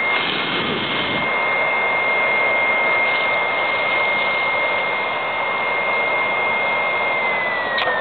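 BioLite camp stove's built-in fan blowing air into the wood fire: a steady rushing whir with a thin high whine. Near the end there is a click and the whine starts falling in pitch as the fan slows.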